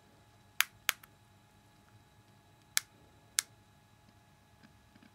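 Four sharp clicks in two pairs as buttons on a Kodak ZM1 mini camcorder are pressed.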